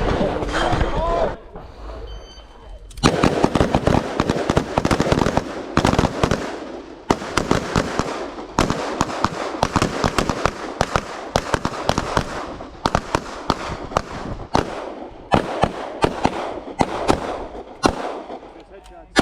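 Rapid gunfire from several shooters on a firing line, rifle and pistol shots overlapping in dense, irregular strings, starting about three seconds in.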